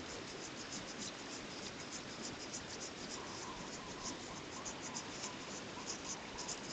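Fly line being drawn in by hand through the rod guides in a slow retrieve, a faint rapid scratchy ticking over a steady hiss.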